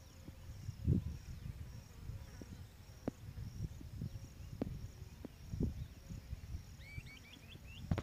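Quiet outdoor ambience: faint, steady insect chirping over a low rumble, with a few soft knocks. A quick run of about five short chirps comes near the end.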